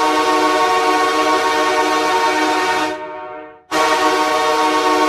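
Ice hockey goal horn blasting: a long, steady horn tone that dies away about three seconds in, then a second blast that starts abruptly less than a second later.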